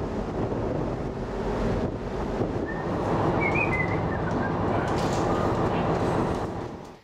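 Ferry's engines rumbling steadily, with wind buffeting the microphone, and a few short high chirps a little past the middle.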